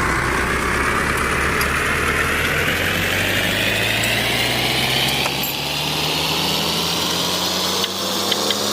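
A vehicle engine running, its pitch rising slowly and evenly as it speeds up.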